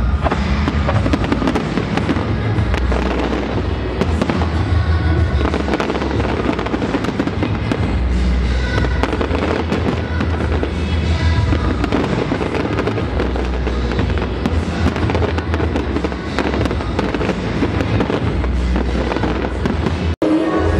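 A large fireworks display: aerial shells bursting and crackling in rapid succession, the bangs overlapping almost without pause, with music playing underneath.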